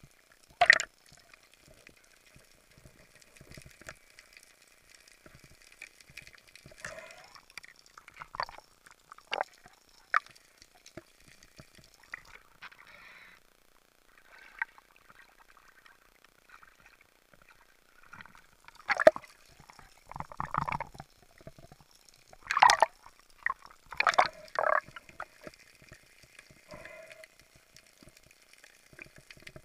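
Water sloshing and dripping against an underwater camera housing, with scattered clicks and a cluster of louder splashes about two-thirds of the way through.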